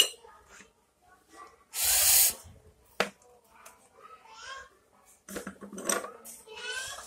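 Ceramic toy cups, saucers and teapot clinking and knocking as they are handled, a few separate clinks. About two seconds in comes a short loud hiss, the loudest sound here, with faint voices later on.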